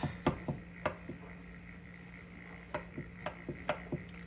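Hansgrohe counter-mounted kitchen soap dispenser pump being pressed repeatedly to prime it, giving a series of sharp plastic-and-metal clicks. There are a few clicks in the first second, then a quicker run of about six near the end.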